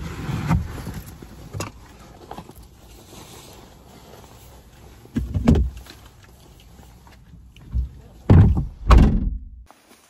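Bags and gear being lifted out of a car boot, knocking dully on the carpeted boot floor and sides. There is a thump near the start, another about five seconds in, and the loudest two close together near the end.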